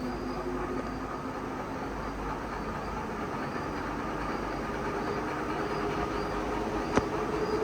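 Ceiling fan running with a steady hum, and a faint high chirp repeating a little more often than once a second as it turns. There is a single sharp click near the end.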